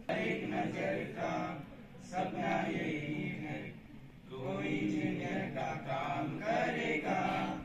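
A group of boys' voices singing together in unison, chant-like, in phrases with short breaks between them.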